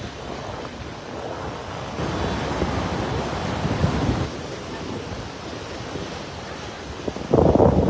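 Surf washing in over rocks in shallow seawater, with wind rumbling on the microphone. The rush swells for a couple of seconds, then turns much louder near the end.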